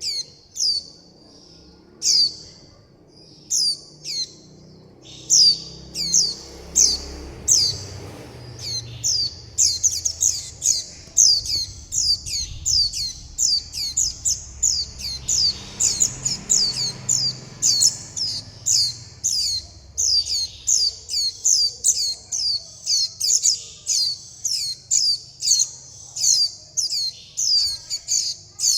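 Fledgling white-eyes giving short, high, downward-sliding begging calls to their parent, over and over. The calls come a second or two apart at first, then quickly, several a second, from about ten seconds in.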